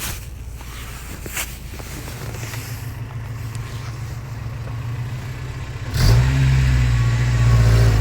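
Toyota 22RE four-cylinder pickup engine running low at first, with a couple of knocks in the first second and a half, then revving up suddenly about six seconds in and pulling steadily under load as the truck climbs in four-wheel drive.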